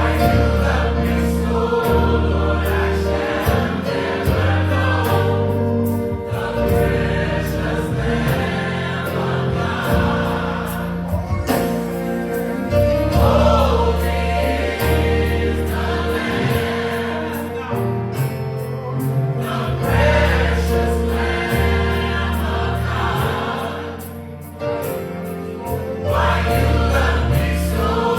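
Gospel choir singing with a band: sustained choral harmonies over bass and keyboard accompaniment.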